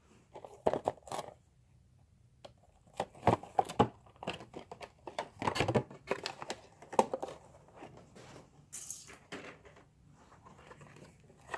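Hot Wheels blister pack being opened by hand: the plastic blister and cardboard card crinkle, crackle and tear in irregular bursts.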